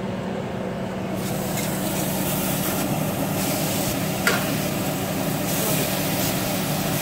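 Seasoned chicken pieces sizzling as they go into a hot enamelled cast-iron grill pan. The sizzle starts about a second in and keeps on, with one sharp click around four seconds in and a steady low hum underneath.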